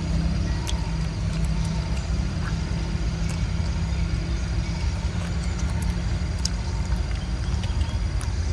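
Steady low rumble with a faint hum in it, like a motor running, and a few small sharp clicks scattered through it.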